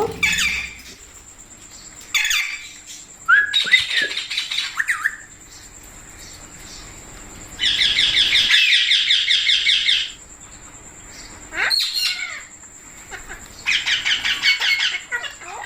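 Pet Indian ringneck parrots calling: short screechy calls at intervals, with two longer bursts of fast repeated chattering notes, the first about halfway through and the second near the end.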